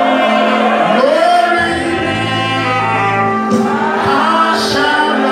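Live gospel praise music: singing by a lead voice and congregation over band accompaniment.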